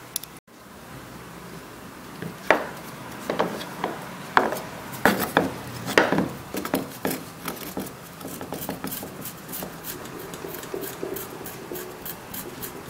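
A knife scraping and cutting a piece of fresh ginger in irregular sharp strokes, which turn lighter and quicker in the second half.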